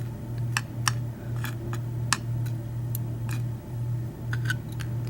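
Light, irregular metallic clicks and taps as the small parts of a disassembled lock cylinder (pins, drivers, springs) are handled, over a steady low hum.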